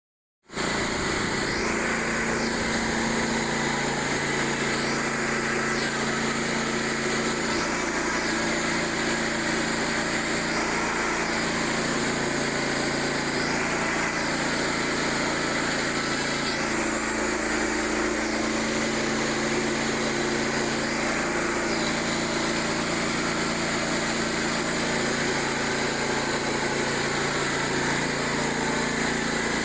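Small gasoline engine of a Frontier OS27 portable bandsaw mill running steadily as the band blade cuts through a white pine log, starting abruptly about half a second in.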